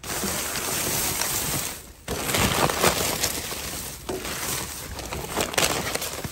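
Plastic bags, bubble wrap and crumpled paper crinkling and rustling as dumpster trash is rummaged through. The crinkling dips briefly about two seconds in, then goes on with sharper crackles.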